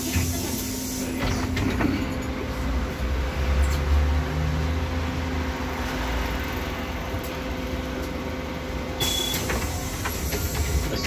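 Interior of a moving trolleybus: low road rumble under a steady electrical hum, swelling briefly about four seconds in, with a few short rattles.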